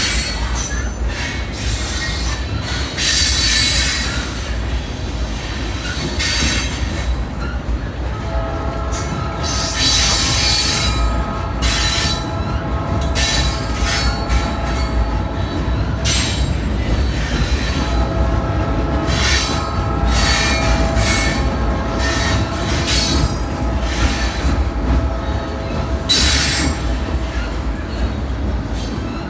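Loaded rock freight train rolling past: a steady low rumble with scattered wheel knocks. From about eight seconds in, a steady high-pitched wheel squeal runs for long stretches, broken by a short gap around the middle.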